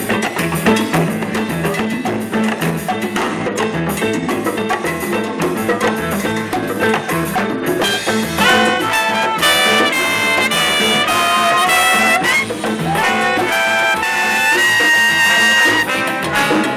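Live Latin band playing a salsa groove: congas and percussion with guitar drive the rhythm, and about halfway through a horn section of trumpet and two trombones comes in with a melody line.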